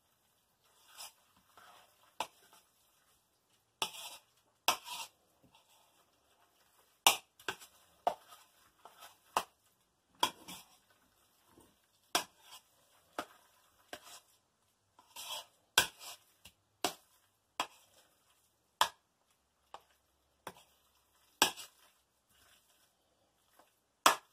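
Chunky guacamole being mixed in a bowl: short, irregular wet squelches and clicks, roughly one a second.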